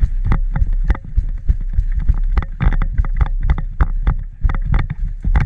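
Footsteps at a brisk pace on the ground, a quick irregular run of thudding steps, about three to five a second.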